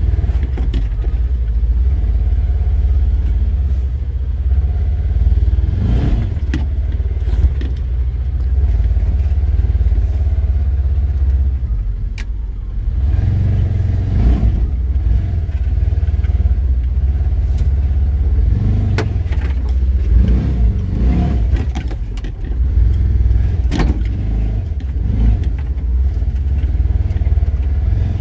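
Off-road vehicle driving slowly along a rough woodland trail: a steady low engine rumble, with knocks and rattles now and then as it bumps over the ground.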